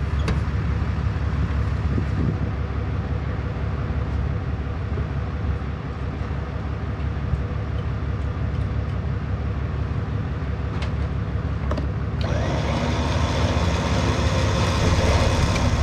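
A vehicle engine idling steadily. About twelve seconds in, an electric trailer winch starts running, taking up its cable to pull the truck onto the trailer.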